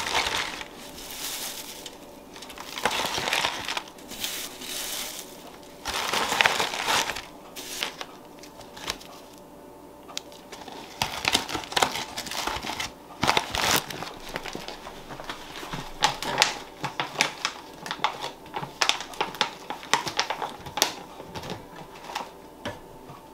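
Foil freeze-dryer bag crinkling and rustling as it is opened and filled with freeze-dried shredded hash browns from a metal tray. From about halfway on come many sharp clicks and crackles as the dry shreds fall in and the bag is handled.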